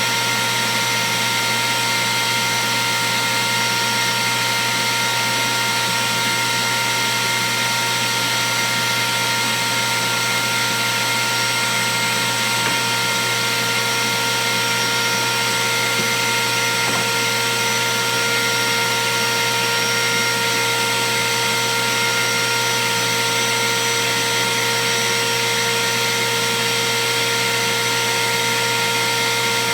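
Router on a router table running steadily: an unchanging high whine over a strong hiss, with no pause or change in speed.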